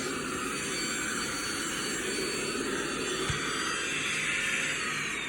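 Kärcher VCH 2 handheld vacuum cleaner running steadily: a high motor whine over the hiss of rushing air. Near the end the whine begins to fall in pitch.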